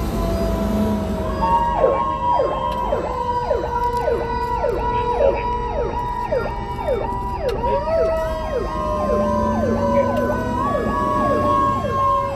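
Emergency vehicle sirens. A fast yelp starts about a second in, about three sweeps a second, over long, slowly falling wailing tones, with vehicle engine rumble underneath.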